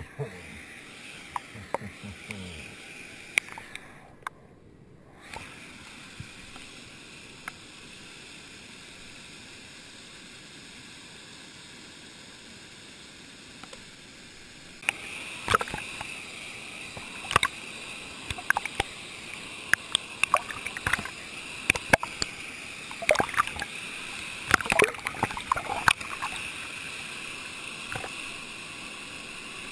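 Stream water heard through an underwater camera: a muffled, steady water noise at first, then, about halfway through as the camera comes up to the surface, louder rushing and sloshing water with many sharp irregular clicks and crackles.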